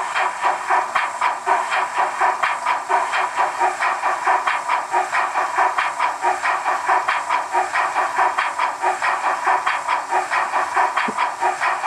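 Henning digital sound decoder in a Roco H0 class 44 steam locomotive model playing the running sound: steady, even steam exhaust chuffs about four a second with hiss, from the model's small loudspeaker.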